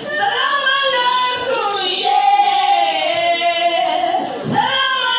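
A solo singer with a high voice, holding long notes that waver and glide in pitch.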